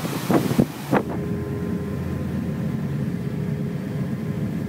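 Wind buffeting the microphone over the rushing wake of a yacht under way. About a second in it gives way to the yacht's machinery heard from inside a guest cabin next to the engine room: a steady low hum with a faint even whine over it.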